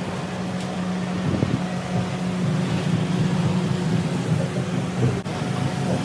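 An engine running steadily, a constant low hum with a brief dip in level about five seconds in.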